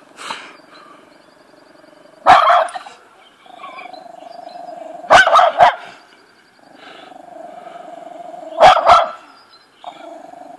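Small terrier barking at a snowman in sharp bursts: one at about two seconds, a quick run of three at about five seconds, two more near nine seconds. Between the barks it holds a low, steady growl.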